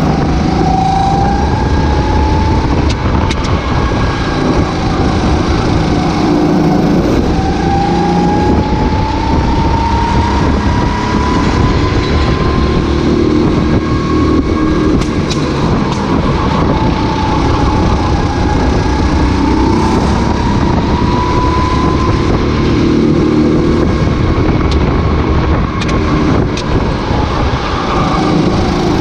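Racing kart engine at race speed, its pitch climbing slowly as it accelerates, easing off and climbing again several times as it goes round the track.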